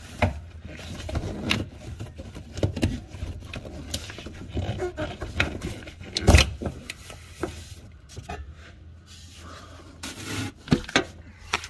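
Plastic fuel-line quick-disconnect being worked loose by hand: scattered scraping and clicking, with a sharper knock about six seconds in and more clicks near the end.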